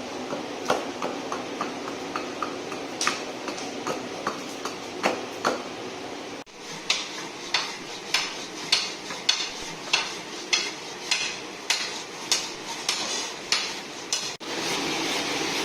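Hand tools working a piece of ash wood as a hammer handle is shaped: irregular clicks and scrapes at first, then a steady run of sharp strokes about two a second. Near the end a steady power-tool whir takes over.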